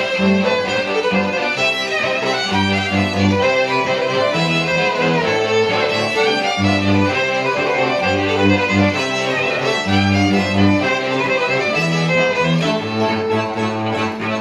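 Live folk tune on fiddle and cello: the fiddle plays the melody while the cello bows a bass line underneath in separate held notes.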